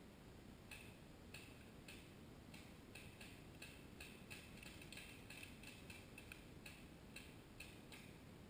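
Faint, irregular clicking, two or three ticks a second, starting about a second in over a low rumble.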